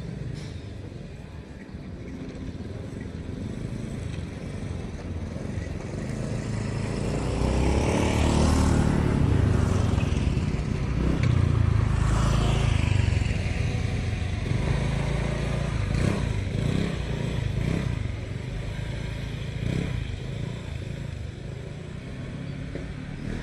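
A vehicle passing by: a low rumble that swells to its loudest about halfway through, its pitch bending down as it goes past, then slowly fades.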